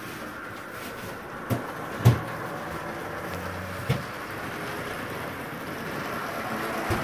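HO-scale model train running on the track, a steady whir from its wheels and motor, with a few sharp knocks.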